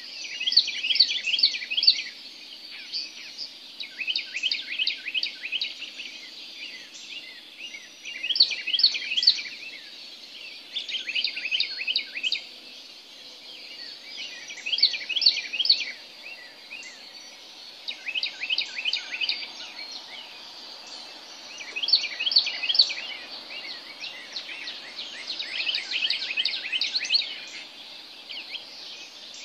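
Songbirds singing in the pre-dawn dark: short, repeated phrases of rapid, high, downslurred notes, each lasting a second or two and recurring every few seconds, over a faint steady background hum.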